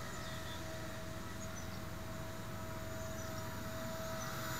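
Blade 130X electric RC helicopter in flight some way off, its motor and rotors giving a steady whine with a constant high tone.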